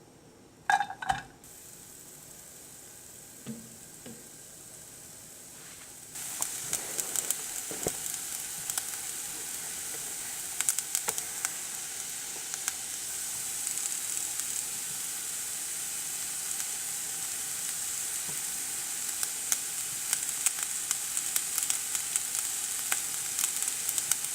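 Onion frying in peanut oil in a pan: a steady sizzle with frequent crackles and pops that starts suddenly about six seconds in, as the onion hits the hot oil, and grows a little louder later. A couple of sharp clanks come about a second in.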